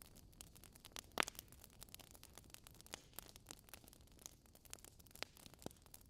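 Wood logs burning in a fireplace: a faint hiss with scattered snaps and crackles, the loudest pop about a second in and a couple more near the end.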